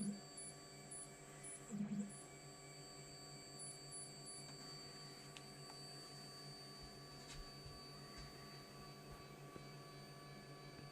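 Anycubic Mono X resin 3D printer humming steadily, a low hum under a thin high whine, with two soft low bumps at the start and about two seconds in.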